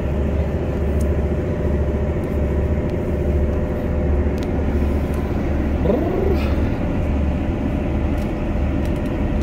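GWR passenger train running along the track, heard from inside the carriage: a steady low rumble of the wheels and running gear with a constant drone over it.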